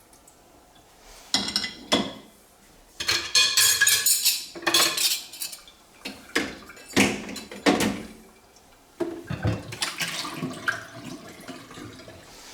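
Ceramic plates, cups and cutlery clinking and clattering as they are set into a dishwasher's racks, in a run of separate knocks and ringing clinks, then a denser rattle near the end.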